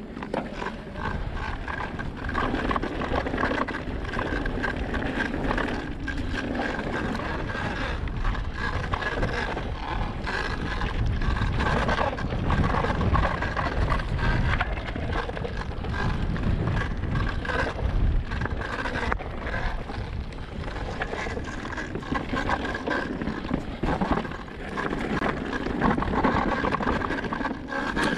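Electric mountain bike being ridden on a trail: tyres on dirt, frequent rattles and knocks from the bike over rough ground, and a steady whine throughout, with wind on the microphone.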